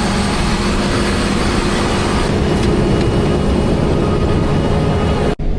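Combine harvester running under load: a steady mechanical drone with a strong hiss over it, cutting off abruptly near the end.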